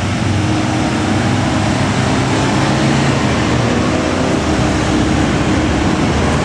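Hill-road traffic: a Hino 500 truck's diesel engine running steadily as the truck comes slowly closer, mixed with cars and motorcycles passing.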